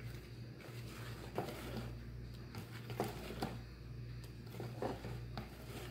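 Wire whisk stirring flour into cake batter in a plastic bowl: a soft wet stirring with a few light, irregular taps of the whisk against the bowl, over a steady low hum.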